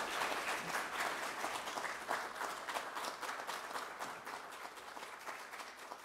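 Audience applauding, the dense clapping slowly dying down toward the end.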